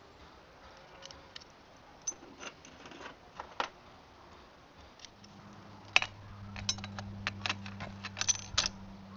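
Light metallic clinks and clicks of clutch plates and parts being handled and fitted back into a trials motorcycle's clutch, scattered at first and coming thick and fast near the end. A low steady hum comes in about five seconds in.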